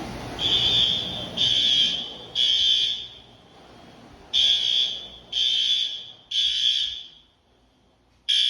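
Building fire alarm sounding the temporal-three evacuation signal: a high-pitched tone in three half-second pulses, a pause, three more pulses, and the next group starting near the end.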